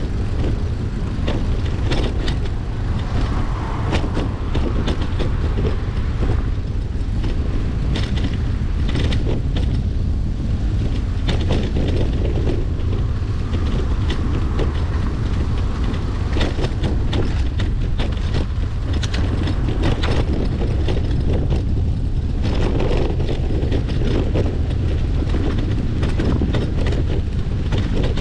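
Bicycle ride heard through a GoPro's microphone: a steady low rumble of wind on the mic, with frequent small clicks and rattles from the bike and the road surface.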